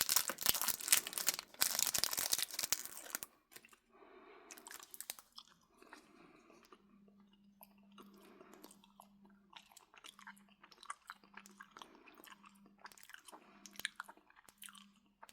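Close-up mouth sounds of a hard cough drop being eaten: loud dense crackling for about the first three seconds, then quieter, scattered clicks and wet smacks as it is sucked and chewed.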